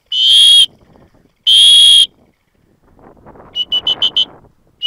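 Dog-training whistle: two long, loud blasts about a second apart, then about three and a half seconds in a quick run of short pips, about seven a second.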